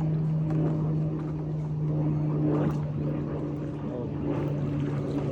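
A motor running with a steady, unchanging low hum.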